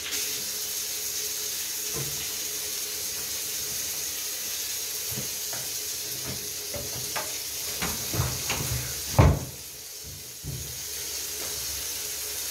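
Shower water running steadily from the tap. In the second half come several knocks and clatters, with a loud thump about nine seconds in, after which the water cuts out for about a second and then starts again.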